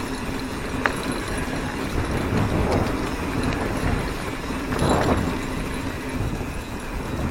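Mountain bike being ridden over a dirt trail: tyres rolling and the chain and frame rattling over bumps, with a sharp click just under a second in and a louder rattle about five seconds in.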